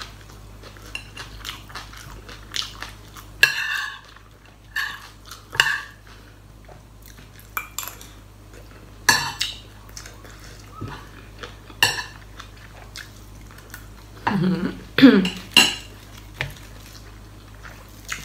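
Close-up chewing of crisp fresh raw vegetables with pork larb: irregular wet crunches and mouth sounds, a few louder ones about nine, twelve and fifteen seconds in.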